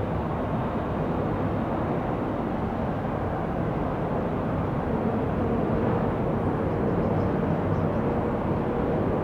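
Steady jet-engine noise from a Boeing 777-200 airliner, a rushing rumble with a faint hum, growing slightly louder after the middle.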